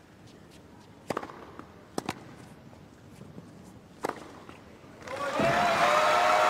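Tennis ball struck hard by rackets in a rally on a hard court: a few sharp pops, about a second or two apart. About five seconds in the crowd breaks into applause and cheering as the point ends, much louder than the shots.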